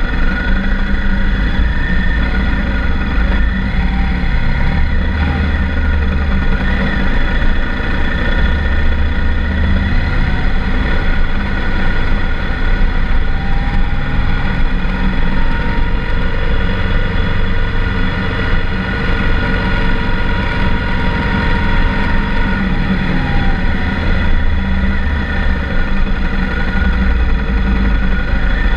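BMW R1200GS Adventure's boxer-twin engine running steadily as the motorcycle rolls slowly along behind traffic, with a strong low rumble.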